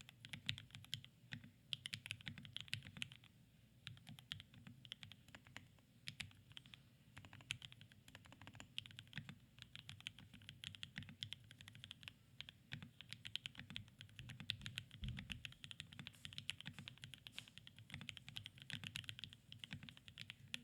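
Fast, continuous typing on a custom 65% mechanical keyboard in an aluminum KBDfans TOFU65 case, fitted with lubed and filmed Alpaca linear switches and ABS doubleshot keycaps. The keystrokes come in quick runs broken by a couple of short pauses.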